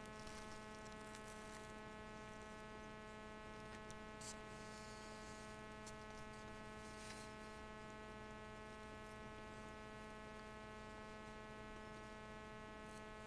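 Faint, steady electrical mains hum with a buzzy row of overtones, with a couple of tiny soft rustles or clicks a few seconds in.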